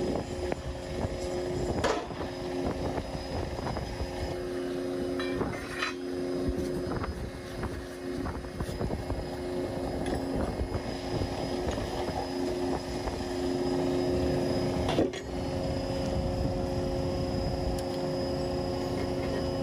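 A motor or engine runs with a steady drone. A few sharp knocks of metal tools on steel sound over it, the loudest about fifteen seconds in.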